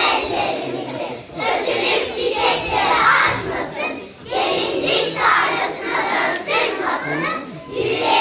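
A large group of young children chanting loudly in unison, in shouted phrases about a second long with short breaks between.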